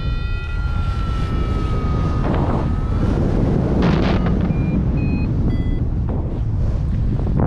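Wind rushing over the microphone in paraglider flight, with electronic tones from a flight variometer: a long tone gliding slowly down in pitch for about three seconds, then three short, higher beeps a little past the middle.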